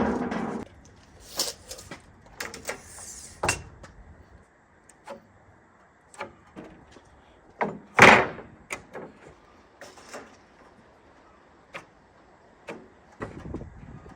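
Scattered knocks, bumps and scrapes of a sheet of OSB being lifted and carried with a panel-carrier clamp, with one louder scraping thump about eight seconds in.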